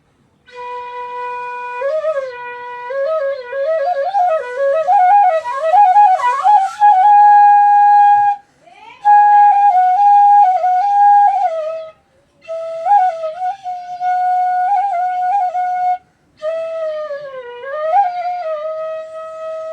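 E middle bansuri (Indian bamboo transverse flute) played in four short melodic phrases, with sliding bends and quick ornaments between held notes and brief breaks between phrases, as a first tone check of the new flute.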